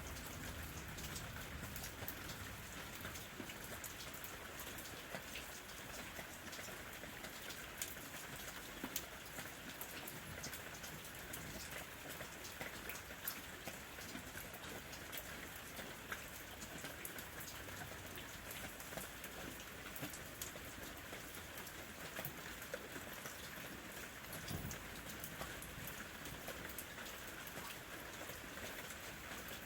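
Steady rain falling, a constant hiss with many scattered drop ticks and patters on a surface.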